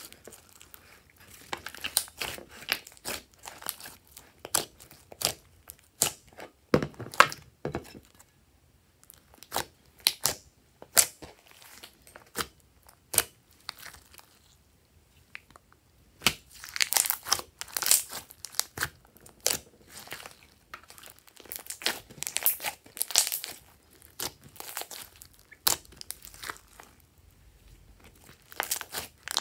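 Hands squishing, stretching and folding glossy slime, making a rapid, irregular crackle of sticky clicks and pops, with denser bursts of clicks about halfway through and again a little later.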